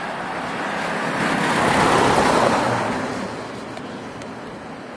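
A car driving past on the street: tyre and engine noise swells to a peak about two seconds in, then fades away.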